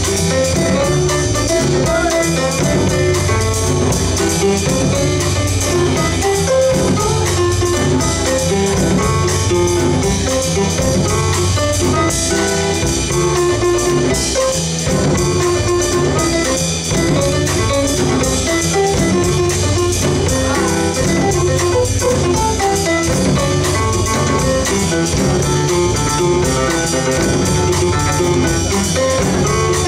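Live jazz from a small band, with upright double bass, drum kit and piano, playing steadily without a break.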